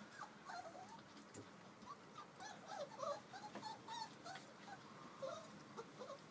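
Four-week-old puppies squeaking and whimpering: many short, high, sliding cries in quick succession, with faint clicks as they eat from a steel bowl.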